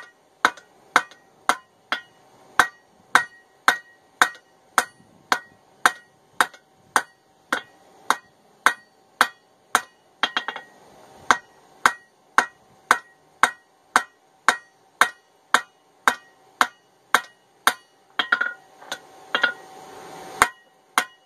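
A hand hammer strikes a hot steel ball peen hammer head held on an anvil, in steady blows about two a second, each with a short metallic ring from the anvil. This is the squaring-up stage of forging, turning the round head square before drawing it out. There are brief noisier patches between blows near the middle and near the end.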